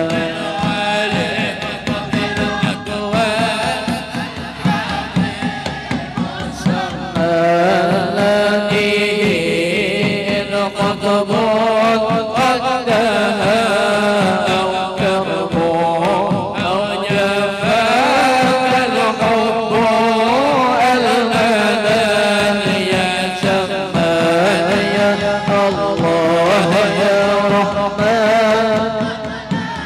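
Two men's voices chanting an Arabic devotional hymn into microphones: a wavering, ornamented melody over a steady held low note.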